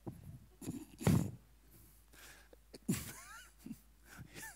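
A man's short breaths and stifled chuckles into a headset microphone, the loudest about a second in. A couple of brief vocal sounds that rise and fall in pitch come near three seconds and again near the end.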